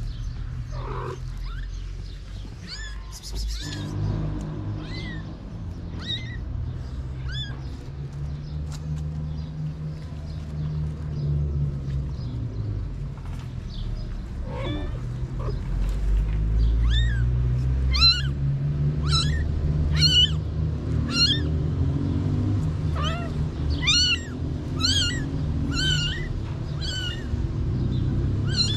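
A newborn kitten crying with repeated short, high-pitched mews, sparse at first and then coming about one and a half a second in the second half, over a steady low rumble.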